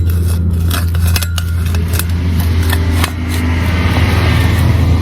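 Serrated stainless-steel planting tool being pushed and twisted into hard soil, with sharp crunching clicks in the first few seconds and a rougher scraping after about three seconds. A loud, steady low drone like a running engine carries on underneath.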